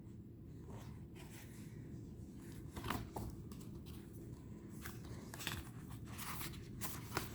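Faint handling of tarot cards: a string of soft, brief swishes and scrapes as cards are slid and turned over.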